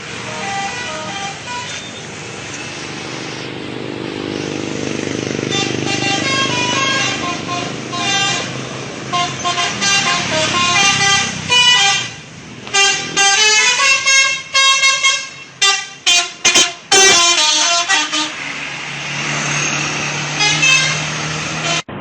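Telolet horn on a bus: a set of tuned air horns tooting a quick, jumpy tune of short notes, with the bus engine running underneath. The notes come thickest through the middle, and a steady low hum is left near the end.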